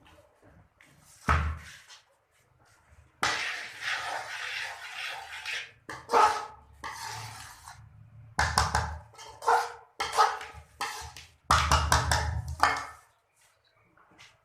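A metal cooking pot being handled: a sharp knock with a thud about a second in, a stretch of scraping, then two clusters of clatters and knocks.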